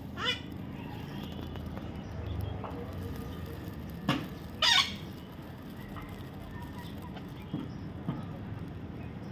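Parrot giving a few short squawks, the loudest two close together about four seconds in.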